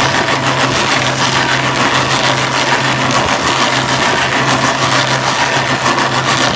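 Excavator engine running steadily under load while a Fecon Stumpex attachment bores into a tree stump like a drill, with continuous crunching and shredding of wood.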